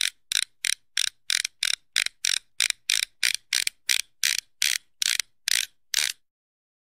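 A run of short rasping ratchet-like clicks, about three a second and some eighteen in all, that stop a little after six seconds in.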